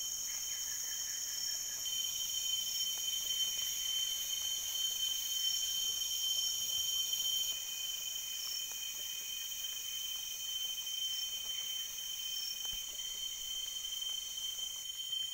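Tropical rainforest insect chorus: several steady, high-pitched drones layered together, getting a little louder about two seconds in and dropping back about halfway through.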